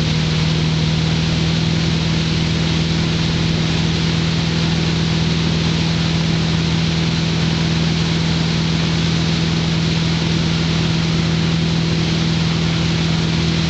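Tow boat's engine running steadily at towing speed, a constant low hum with a steady hiss over it.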